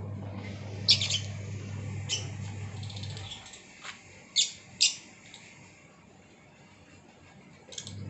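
Lovebirds giving a handful of short, shrill chirps, two of the loudest close together near the middle. A steady low hum runs underneath and stops about three seconds in.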